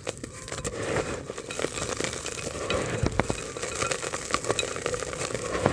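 Dry multani mitti (Fuller's earth) being crumbled between the fingers into a terracotta clay pot: a steady, dense crackle of clods breaking up, with grit and powder pattering down, and a few sharper clicks partway through.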